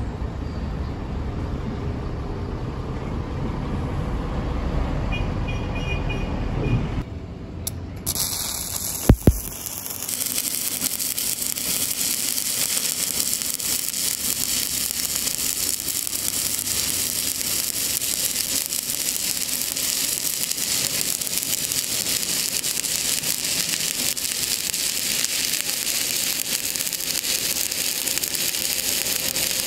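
A low rumble, then a sharp click about nine seconds in. After that comes the steady crackling sizzle of a stick-welding (SMAW) arc, a flux-coated electrode burning as it lays a bead on steel plate.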